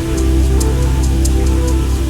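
Background music: sustained synth and guitar notes over a steady bass, with a light, regular high percussion tick.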